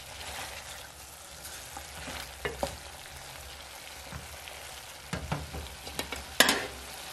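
Beef and onions frying with a steady low sizzle in an aluminium sufuria, now that the cooking water has boiled off and the onions are browning. A wooden spoon stirs them, scraping and knocking against the pot several times, with the loudest knock near the end.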